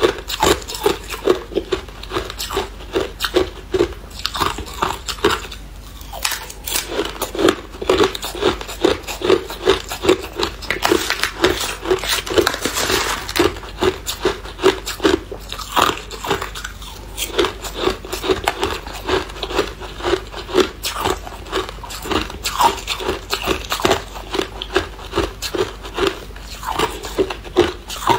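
A person biting and chewing hard clear ice: a continuous run of sharp crunches, two or three a second.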